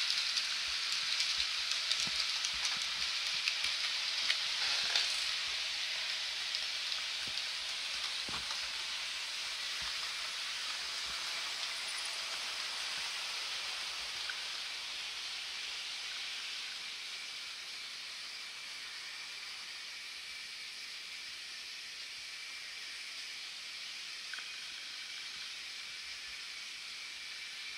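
Model freight train of flat wagons rolling along the layout track: a steady hissing rush of small wheels on the rails with a few faint clicks, fading away over the first twenty seconds or so.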